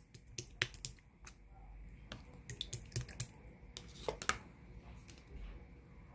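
Clear slime being squeezed and stretched by hand, giving irregular small sticky clicks and pops.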